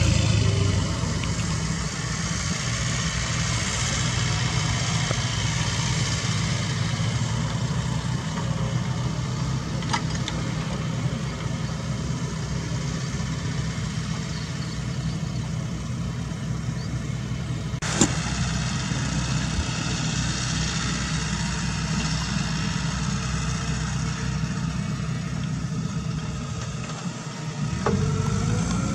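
Diesel engines of Komatsu and Cat mini excavators running steadily as they dig, a low continuous engine hum. A single sharp knock about two-thirds of the way through.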